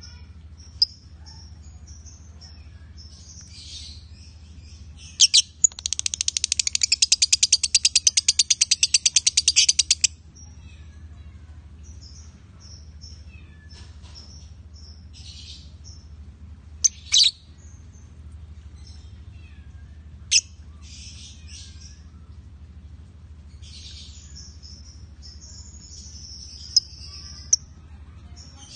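Lovebirds chirping and twittering in short high calls, with one long, fast, unbroken chatter lasting about four seconds near the start, the prolonged 'konslet' song that keepers prize, and a few sharp single shrieks scattered through.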